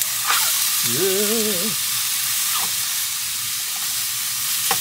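Chicken pieces sizzling as they fry in a non-stick pan on a portable gas stove, with a few clicks of the spatula against the pan. A short wavering hum about a second in.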